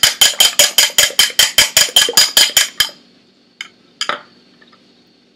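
Two eggs being beaten in a bowl: a utensil strikes the bowl rapidly and evenly, about six clinks a second, and the bowl rings. The beating stops about three seconds in, followed by two light knocks.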